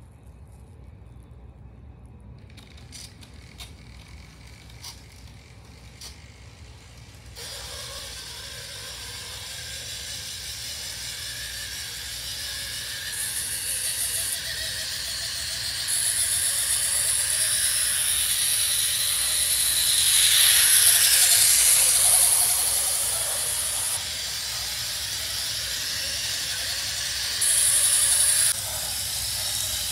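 N-gauge model trains running on their track: faint clicking at first, then from about seven seconds in a hissing running noise of wheels and motors that builds, loudest about twenty seconds in, with a high steady whine at times.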